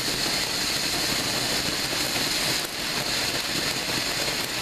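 Two ground fountain fireworks spraying sparks with a steady, loud, rushing hiss, which dips briefly about two and a half seconds in.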